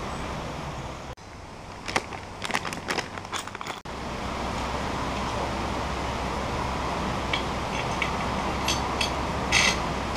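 Sharp metallic clicks and rattles from a small hand-crank winch being handled: a quick run of clicks about two seconds in, a few scattered ones later, and a louder clatter near the end. Under them runs a steady rushing background noise.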